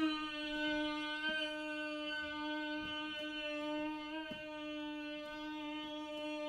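A woman humming one long, steady note on a single slow exhale: the honeybee humming breath, a relaxation breath that lengthens the out-breath.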